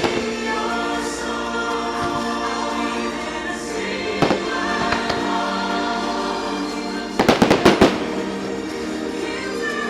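Fireworks show soundtrack with a choir singing held chords over orchestral music, cut by a sharp firework crack about four seconds in and a rapid volley of about eight firework bangs a little over seven seconds in.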